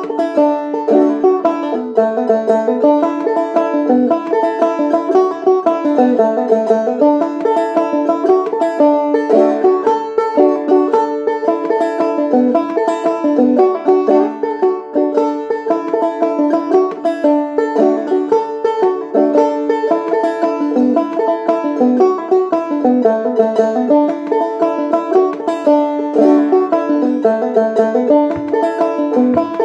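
Banjo played clawhammer style: an Irish jig in 6/8, a steady unbroken run of quick plucked notes.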